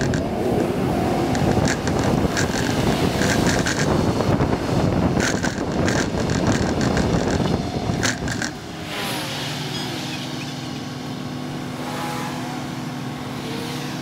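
Transit bus on the move, with road noise and interior rattles. About eight seconds in it comes to a stop at the curb, and its engine settles into a steady idling hum.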